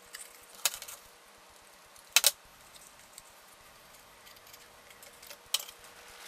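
Thin card being handled and pressed into place: a few crisp clicks and rustles, the loudest a quick double click about two seconds in.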